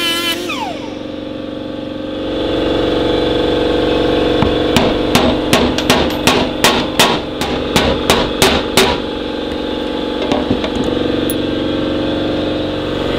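An angle grinder winds down with a falling whine just after the start. Then come about a dozen quick hammer blows, around three a second, on a punch driving the ground-down rivet pins out of a link of a motorcycle drive chain, over a steady hum.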